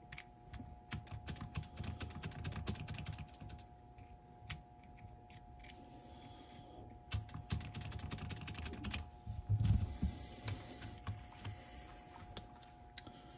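Runs of rapid light clicks and taps from small parts of a Sony TC-WR950 cassette deck's tape transport being handled, in two bursts, with a dull low knock about ten seconds in.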